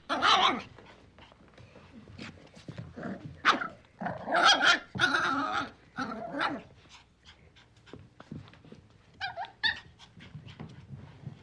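A playful puppy barking and growling: sharp yelps at the start and a longer run of barks and growls in the middle, broken by short clicks and snuffles, with a pair of quick high yips near the end.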